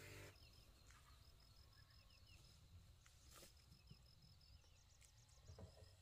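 Near silence with faint outdoor ambience: an insect chirping in a fast, even, high-pitched pulse train, in stretches of a second or two, with a few short, faint chirps between.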